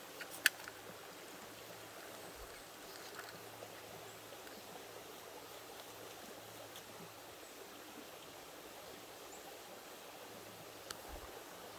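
Creek water flowing with a steady rush, broken by one sharp click about half a second in.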